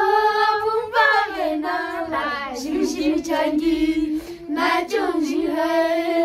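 Boy novice monks singing a song, with long held notes.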